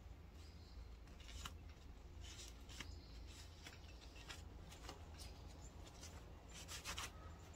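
Faint, irregular rubbing and rustling of a cloth shop rag wiped over a painted cast-iron Mopar 318 block, cleaning excess RTV sealant from around a newly installed brass freeze plug. A steady low hum runs underneath.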